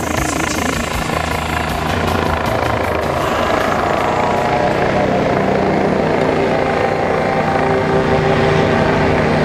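Helicopter flying overhead, its main rotor beating and engine droning steadily; the rotor beat fades after about three seconds while the drone carries on.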